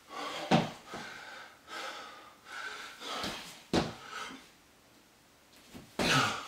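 A man breathing heavily while doing burpees, with three sharp thuds of feet and hands landing on a wooden floor, and a short quiet pause shortly before the last thud.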